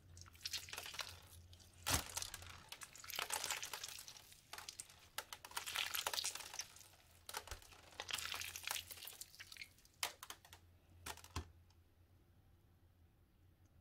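Pink slime mixed with small beads being squeezed, folded and stretched by hand, giving a crunchy, crackly popping with soft squelches. The crackling dies away about eleven and a half seconds in.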